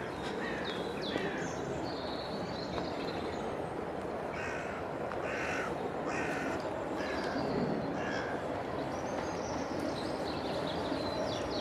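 A crow cawing, a run of about six harsh caws in the middle, with smaller birds chirping, over the steady low rumble of a distant diesel locomotive.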